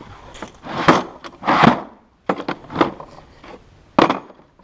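Small metal parts and hand tools clinking and rattling: a run of about seven sharp knocks and jingles, some with a brief high metallic ring.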